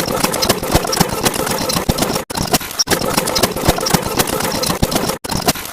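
An engine-like mechanical sound effect, running with a dense rattle. It cuts off abruptly and restarts twice, a little after two seconds in and near the end.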